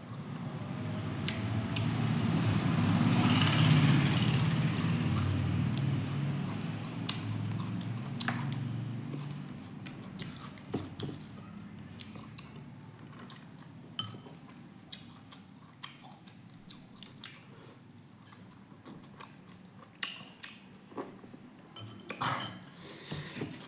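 Close-up chewing and biting, loudest a few seconds in. After about ten seconds it gives way to quieter chewing with many short clicks and taps.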